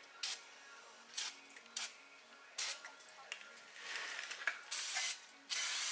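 Brake parts being cleaned: a few short scraping strokes, then two longer hisses near the end, each about half a second.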